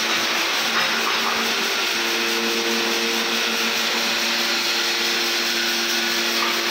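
Woodworking machinery running steadily in the shop: a constant motor whir and hum over a dense hiss, with no starts or stops.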